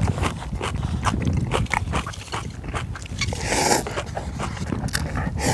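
Close-miked eating of ramen noodles: rapid wet mouth clicks of chewing, with one longer slurp about three and a half seconds in.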